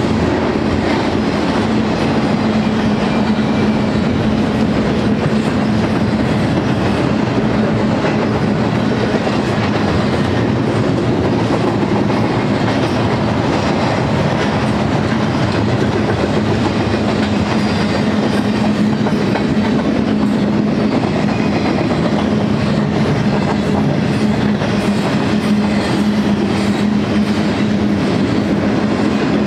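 Double-stack intermodal freight train's loaded well cars rolling past, steel wheels running on the rails in a steady rumble with a constant low hum.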